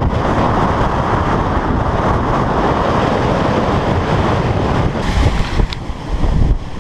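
Strong wind rushing, with heavy low buffeting of wind on the microphone.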